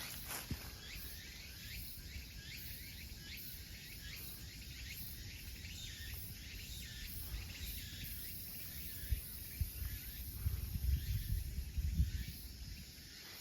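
Mountain forest ambience: a high, pulsing insect trill with a repeated chirping call about twice a second through the first half. Low rumble and a few bumps come in during the last few seconds.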